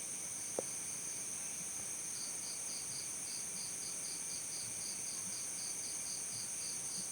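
Crickets chirping: a steady high-pitched trill continues throughout, and about two seconds in another cricket joins with rapid chirps, about five a second. A single sharp click sounds just after the start.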